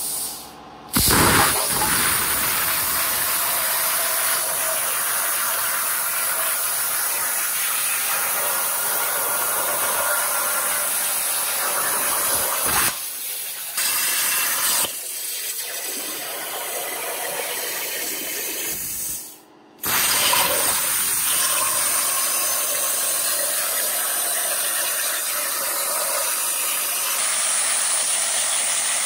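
CNC plasma cutter cutting a sign out of steel sheet: a harsh, steady hiss that stops briefly about a second in and again about two thirds of the way through, then starts again.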